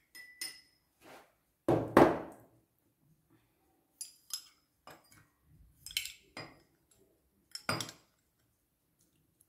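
A metal spoon clinking and scraping against a small glass bowl and serving cups as flan is spooned out, in short separate taps. The heaviest knock comes about two seconds in.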